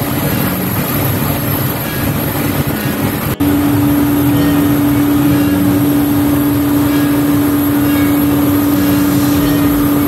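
Ground air-conditioning cart running steadily on the apron, blowing conditioned air through its flexible duct hose into a Boeing 737-800. A steady hum joins the machinery noise after a brief break about a third of the way in.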